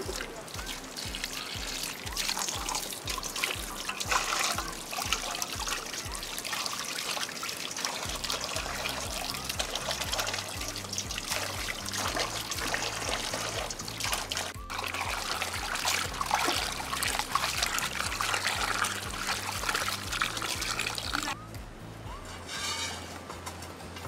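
Tap water running and splashing into a steel pot of water as a plucked guinea fowl is rinsed under it, with background music underneath. The running water stops a few seconds before the end.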